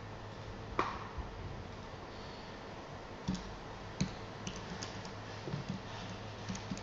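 Scattered clicks and key taps of a laptop being operated, over a steady low hum; a sharper, louder tap comes just under a second in.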